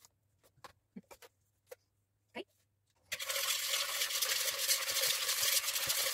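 A few faint clicks of kitchen utensils, then from about three seconds in a loud steady fast scraping: a utensil beating egg yolks and sugar against a plastic mixing bowl.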